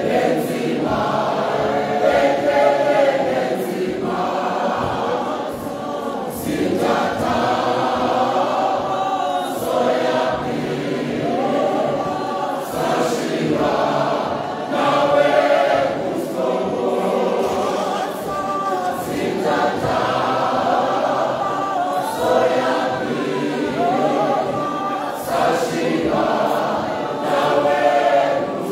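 A mixed church choir of women and men singing together in phrases.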